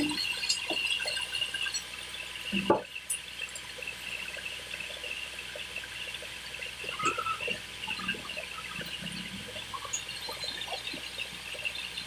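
Running band sawmill with a steady hiss and high whine, and scattered knocks of heavy timber being shifted on the log carriage, the loudest about two and a half seconds in.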